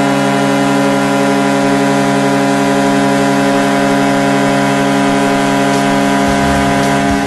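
Vancouver Canucks arena goal horn sounding one long, steady, deep blast. It stops just before the end as music begins.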